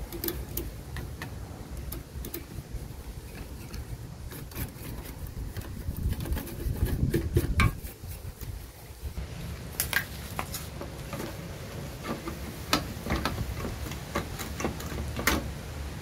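Stiff brush scrubbing dirt off a rusty Corona SCM typewriter, the bristles rubbing over the keys and typebars, with scattered small metal clicks and taps. The scrubbing is heaviest about six to eight seconds in.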